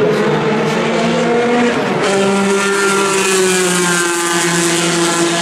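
Historic formula racing car engine running at high revs as the car goes along the track. About two seconds in, a stronger engine note takes over and its pitch slowly falls.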